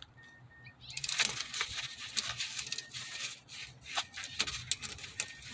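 Air and brake fluid sputtering out of an opened brake caliper bleeder screw with the pedal held down: a crackling hiss with many sharp clicks, starting about a second in. It is the sound of trapped air being purged from the brake line.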